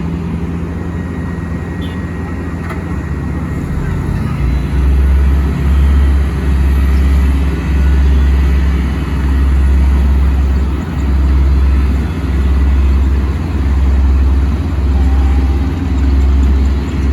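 Heavy asphalt-paving machinery running. A few seconds in, a deep rumble sets in and throbs evenly, swelling and dipping a little more than once a second.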